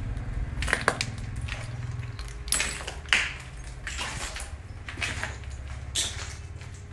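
Footsteps crunching on debris and rubble, irregular steps about once a second, over a low steady rumble.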